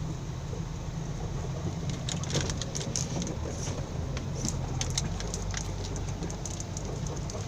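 Isuzu Rocky dump truck's diesel engine running steadily, heard from inside the cab, with frequent short rattles and knocks from the cab and body as the truck drives over rough ground.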